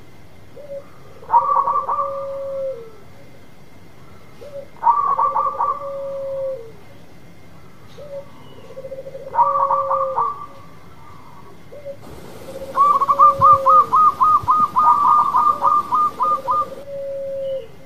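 Zebra dove (perkutut) cooing: three phrases about four seconds apart, each a quick burst of staccato notes over a held lower coo that drops away at the end. About three-quarters of the way through comes a longer run of rapid clipped notes, about four a second, followed by another low coo.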